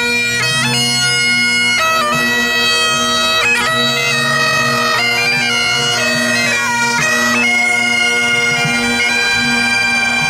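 Two Scottish Great Highland bagpipes playing together: the steady drones sound continuously under a chanter melody that moves from note to note.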